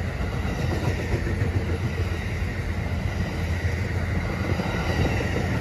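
Two-level Amtrak California passenger cars rolling past close by: a steady rumble of steel wheels on the rails, heaviest in the low end.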